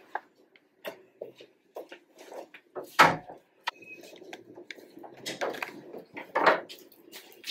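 A wooden door being handled and opened: scattered clicks and knocks from the latch and handle, a loud thump about three seconds in, and a couple more knocks and shuffles near the end.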